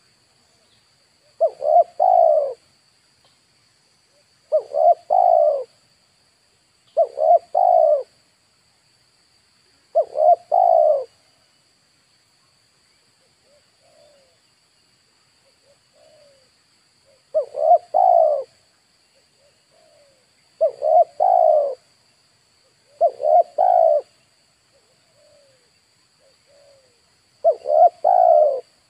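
Spotted dove (tekukur) cooing: eight phrases of two or three notes, each about a second long, repeated every few seconds, with a pause of several seconds in the middle. A faint steady high-pitched whine runs underneath.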